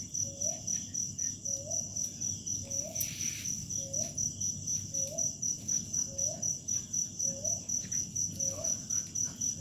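Crickets chirping steadily in a fast, even pulse, with a short low rising call repeating about every two-thirds of a second underneath and a brief hiss about three seconds in.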